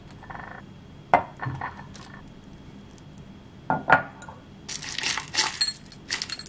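A spoon knocking and clinking against a ceramic bowl and a glass jar as yogurt and jam are spooned out. About two-thirds of the way in, granola poured from a glass jar starts rattling into the bowl.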